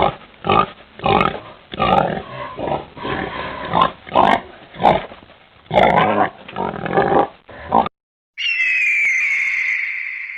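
Pig grunting in a quick series of short, irregular grunts for about eight seconds. After a short gap near the end, a different high, drawn-out call begins.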